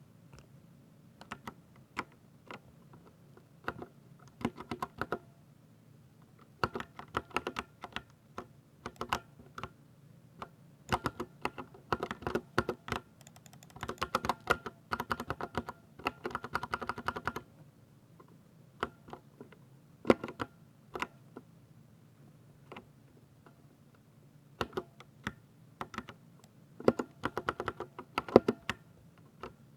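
Typing on a 60% mechanical keyboard with silver switches: keystroke clicks in irregular bursts, with a fast, dense run of typing about halfway through and sparser single keystrokes after it.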